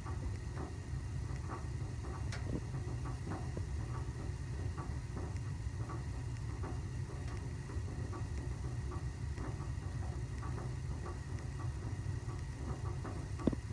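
Four-year-old Buderus gas boiler running, with an irregular stream of small sharp pops and ticks over a steady low rumble, like popping corn. The cause is unknown: it persists after flushing, purging, and checking the gas pressure, burners and boiler sections.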